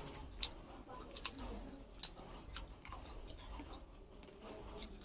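Faint eating noises: a scattered series of small sharp clicks and taps, the sharpest about two seconds in.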